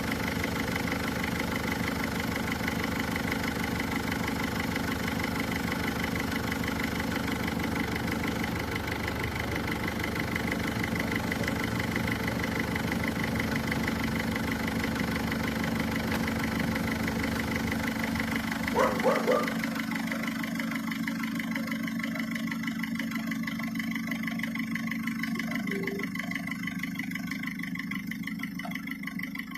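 Mercedes-Benz Vito diesel engine idling steadily, running after a hard start caused by a faulty glow plug. About two-thirds of the way through there is a brief louder sound, after which the deep rumble thins and the engine sound grows gradually quieter.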